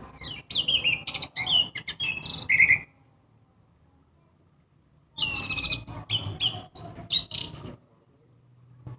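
Orange-headed thrush (anis merah) singing two quick phrases of varied whistled notes, each about two and a half seconds long, with a pause of a couple of seconds between them.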